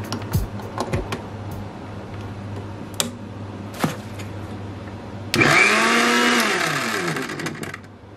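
Prestige Deluxe 750 mixer grinder's motor switched on for a brief test run: it starts suddenly about five seconds in, its pitch rising as it spins up, then falling as it winds down and stops after about two and a half seconds. Before it come a few light clicks, over a steady low hum.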